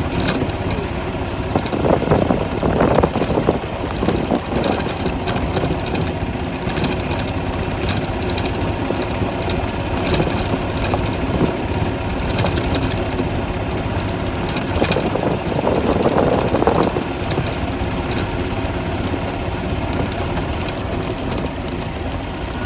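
Golf cart driving along a gravel road: its motor hums steadily under the noise of its tyres on the gravel, swelling louder twice, once a couple of seconds in and again about two-thirds of the way through.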